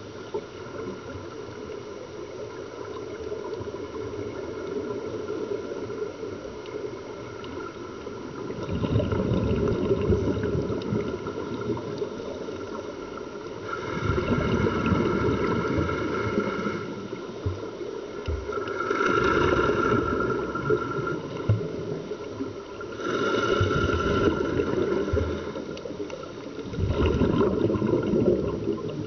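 Scuba regulator breathing underwater: bursts of exhaled bubbles about every four to five seconds, five times, with quieter stretches between.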